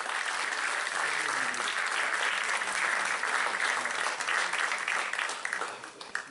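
Audience applauding: many hands clapping in a dense, steady patter that fades near the end.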